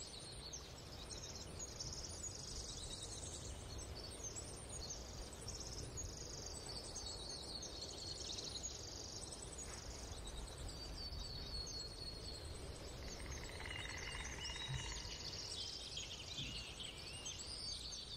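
Faint chirping and twittering of small birds, many short repeated calls, with a few clearer whistled notes in the last few seconds, over a steady low background rumble.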